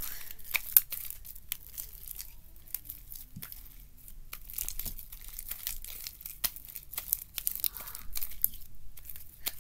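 Freshly borax-activated glue slime being stretched and kneaded by hand, giving a dense run of small sticky pops and crackles.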